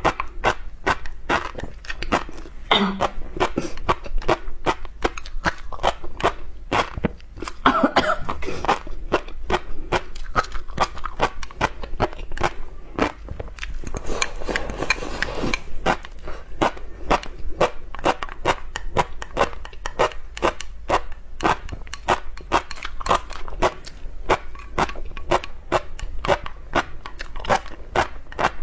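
Close-miked eating: chewing with a quick run of crisp clicks and crackles, about two to three a second. About fourteen seconds in there is a longer, noisier slurp from the rim of the bowl.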